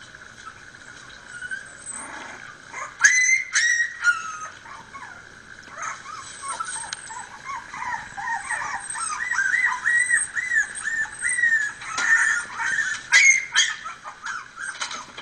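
A litter of Miniature Pinscher puppies whimpering and squeaking, played through a laptop's speakers: high, short squeals that come thick and overlapping from about six seconds in. A few sharp clicks stand out, at about three seconds and again near the end.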